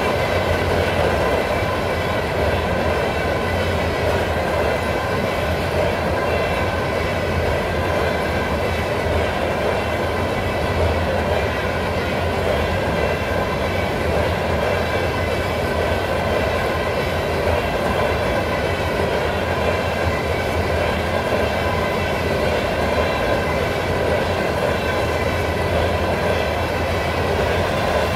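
Freight train's loaded flatcars rolling past steadily on a curve: a continuous rumble of wheels on rail, with a steady ringing tone from the wheels and rails running over it.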